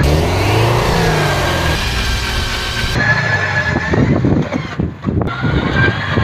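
Subaru's engine revving up and down as the car works over rough off-road ground. Sharp knocks and clunks come in the middle.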